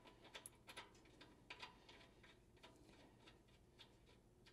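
Near silence with faint scattered metallic clicks, most of them in the first second and a half and fewer after. The clicks come from fine-thread metric bolts being started loosely by hand into the bumper's hitch mount.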